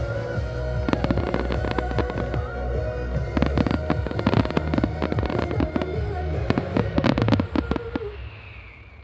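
Fireworks display: a rapid barrage of bangs and crackles over music, stopping abruptly about eight seconds in and then dying away.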